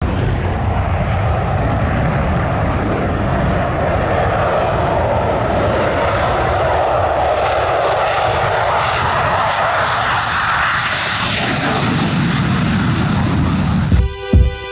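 Aircraft flying past at an air show: a loud, steady rush of engine noise whose pitch rises a little about two-thirds of the way through. Music with a beat cuts in just before the end.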